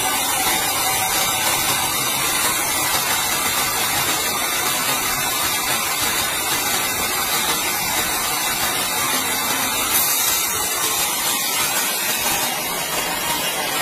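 Large log band saw mill ripping lengthwise through a squared timber log: a steady hissing rasp of the blade in the wood over the machine's running, easing slightly near the end.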